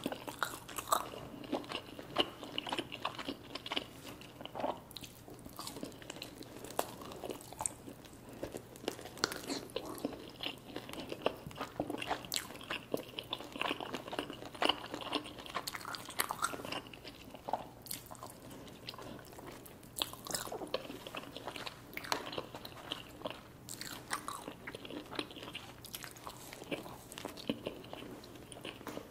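Close-miked eating sounds from a meal of creamy alfredo pasta and chicken wings: steady chewing and biting with many irregular small clicks and crunches.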